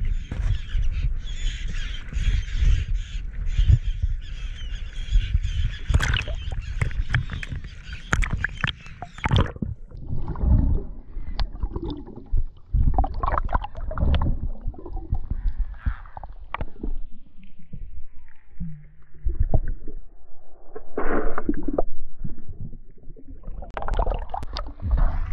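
Choppy sea slapping and splashing around a waterproof action camera at the surface, then, about ten seconds in, the camera goes under and the sound turns muffled: low underwater rumbling and knocks of water movement as the diver swims down.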